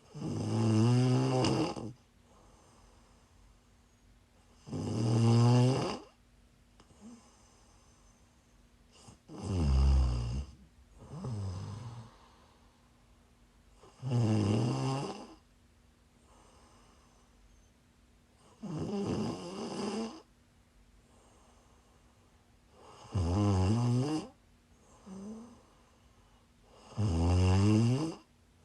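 A sick woman snoring in her sleep: seven loud snores, one on each breath about every four to five seconds. Each snore is pitched and wavers in pitch, and a couple are followed by a shorter, softer one.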